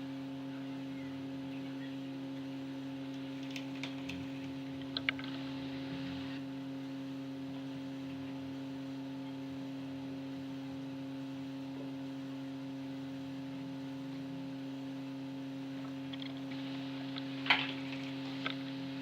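Steady electrical hum at several fixed pitches from the repair bench equipment, with a few light clicks and taps about four to five seconds in and again near the end.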